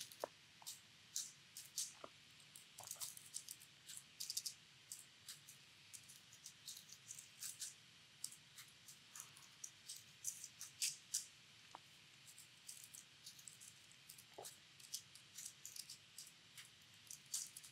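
Faint typing on a computer keyboard: irregular quick key clicks, some in short runs, with brief pauses between.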